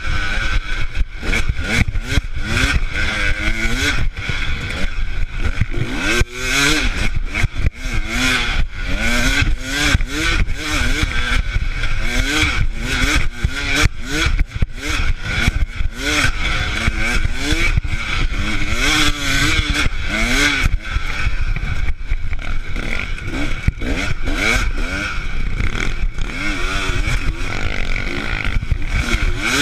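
Dirt bike engine being ridden hard, its pitch climbing and dropping again and again as the throttle is opened and the gears change, over rough wind and rattle noise from the bumpy track.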